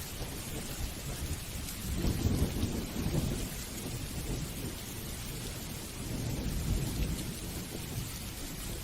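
Steady rain falling, with low rolling thunder that swells twice, about two seconds in and again a few seconds later.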